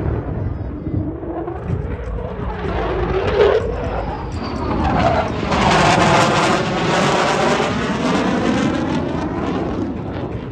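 Lockheed Martin F-35A Lightning II's single Pratt & Whitney F135 turbofan in a fast low pass. The jet noise builds, with a falling whine about three and a half seconds in, and is loudest as the jet goes by around six seconds in, its tone sweeping and phasing before it eases off toward the end.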